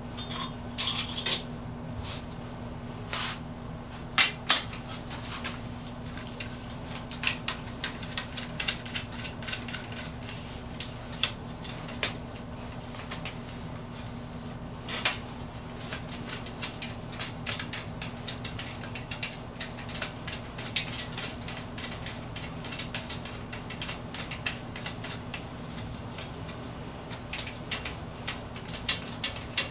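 Metal parts and hand tools clinking and clicking as they are handled on a workbench, in irregular bursts with a few louder knocks, over a steady low hum.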